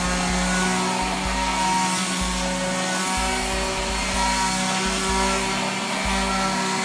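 Electric orbital sander running steadily with a constant motor hum, sanding weathered wooden garden furniture to strip flaking old wood glaze.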